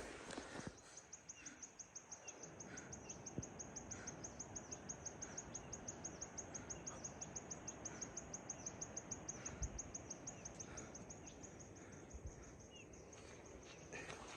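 An insect calling in a rapid, even train of high pulses, about five a second, that starts about a second in and fades out near the end, with a few faint bird chirps beneath.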